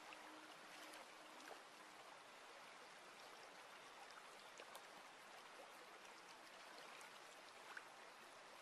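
Very faint, steady trickle of a small garden stream running over stones, with a few light drips. A held musical tone fades out in the first second and a half.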